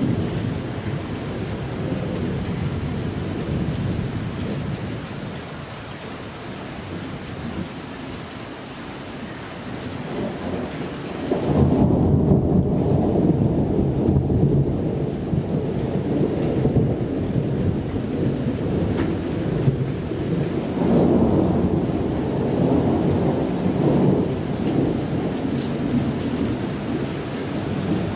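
Thunder rumbling in long rolls over steady rain. A louder roll breaks in suddenly a little before halfway, and another swells up about three quarters of the way through.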